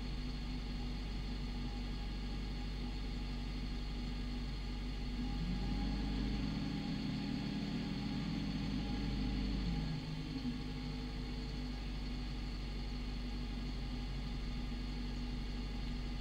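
Car engine running steadily with low road rumble. Its hum rises in pitch about five seconds in as the car speeds up, then drops back about ten seconds in.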